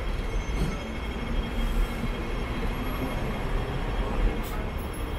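Hong Kong double-decker electric tram running along its street track, heard on board: a steady rumble of wheels and rails.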